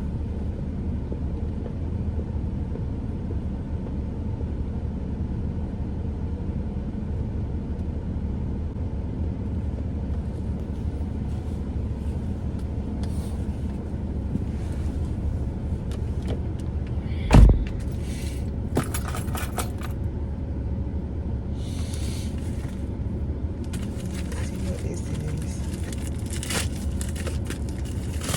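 Steady low rumble of a car engine running, with a single loud thump about two-thirds of the way through, then scattered clicking, rattling and rustling of things being handled.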